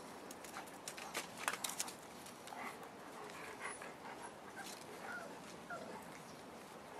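Five-week-old Boerboel puppies giving short, high whimpers and squeaks, with sharp clicks and knocks in the first two seconds.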